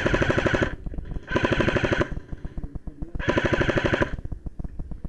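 Airsoft electric gun firing full-auto in three short bursts: rapid mechanical clatter over the whine of the gun's motor. Fainter scattered clicks follow near the end.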